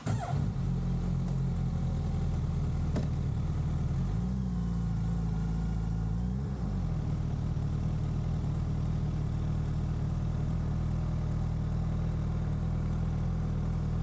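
A 2023 Suzuki Hayabusa's inline-four engine fires up at the very start and settles into a steady idle. The pitch rises slightly about four seconds in and dips briefly around six and a half seconds.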